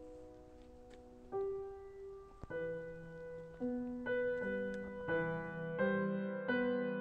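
Background piano music: a soft held chord, then single notes and chords struck one after another, every half-second to a second, growing louder.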